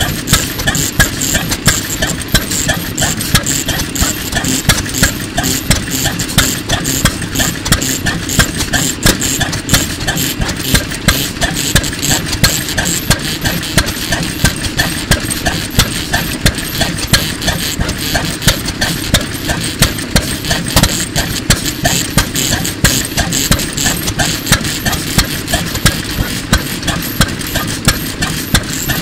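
Hopper-cooled single-cylinder OTORI stationary oil engine of around 1940 (3 hp) running, with sharp exhaust beats at somewhat uneven intervals over a steady mechanical clatter.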